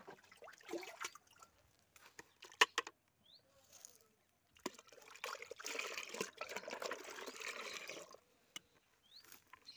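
Mustard oil-cake slurry poured from a steel bowl into a plastic bucket, splashing steadily for about three and a half seconds. A single sharp knock comes before it, about two and a half seconds in.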